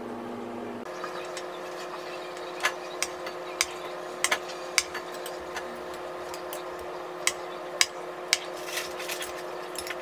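A utensil clicking and scraping against a ceramic baking dish as a corner piece of baked cassava cake is cut and lifted; a dozen or so sharp, irregular clicks over a steady hum.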